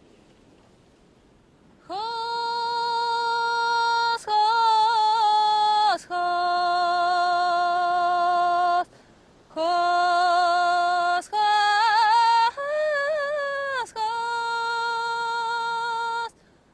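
A woman singing a slow melody in long held notes, each a second or more, with short breaks between phrases and small pitch turns at the ends of some notes. The singing starts about two seconds in, after a faint airy hiss.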